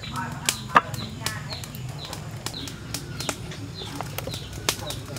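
Sharp clicks and taps of fresh chili peppers being handled and laid in a wicker basket, over a steady low hum. A bird gives short falling chirps over and over in the background.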